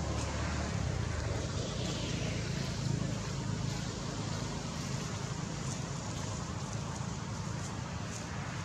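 Steady low outdoor rumble, with a faint falling whine about two seconds in.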